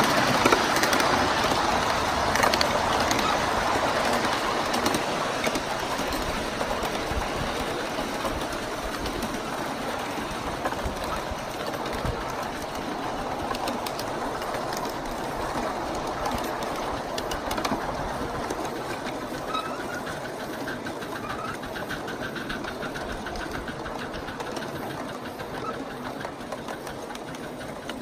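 A miniature 1-inch scale ride-on train running along its track, with the wheels clattering and rattling on the rails and the cars rumbling. It slowly grows quieter.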